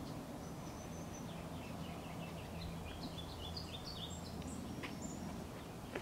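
Bird calling: a quick run of short, high chirps at stepping pitches, over a steady low background rumble. There is a single sharp click near the end.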